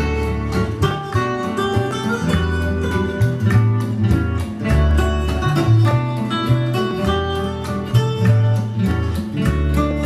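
Prerecorded music played back from a factory cassette on a BIC T-4M cassette deck running at its high tape speed: a busy melody of quick notes over a moving bass line, playing without a break.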